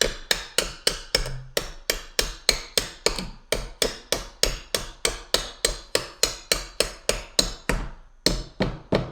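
Hammer tapping a part into a Decked plastic truck tool box: a fast, even run of blows, about three or four a second, with a short break about eight seconds in.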